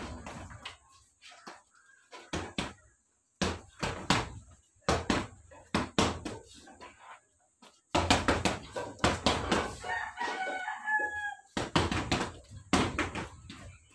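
Gloved punches landing on a hanging heavy bag in quick combinations of several hits, with short pauses between combinations. A rooster crows once, a little after ten seconds in, over the punching.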